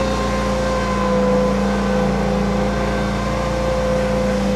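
Engine of a tracked amphibious vehicle running steadily at a constant pitch as it crawls along the flooded road edge.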